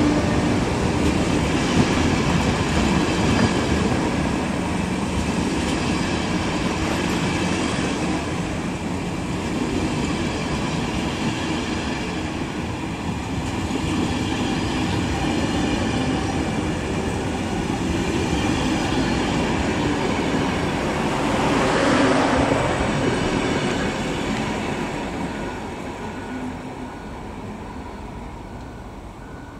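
Passenger coaches of a departing express train rolling past, their wheels rumbling steadily on the rails. The sound swells briefly and then fades away as the last coach pulls off near the end.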